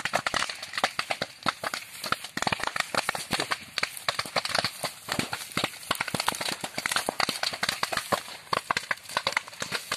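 Fire burning through dry cut brush and grass, crackling with rapid, irregular sharp snaps and pops.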